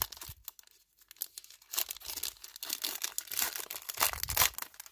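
Foil wrapper of a Panini Prizm football card pack being torn open and peeled back by hand, crinkling and crackling in irregular spurts, busiest from about two seconds in.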